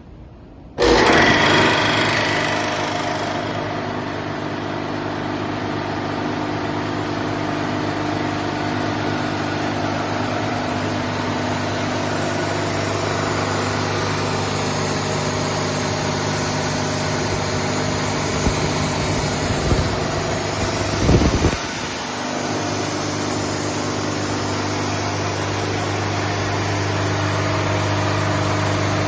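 Nardi Pacific 35 high-pressure breathing-air compressor, a three-cylinder, four-stage unit driven by an electric motor, switched on under a second in and running with a steady hum. About twenty seconds in there is a brief louder knocking.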